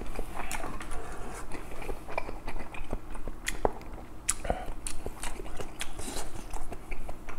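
Close-miked chewing of a mouthful of kimchi stew and rice, with irregular wet mouth clicks and smacks.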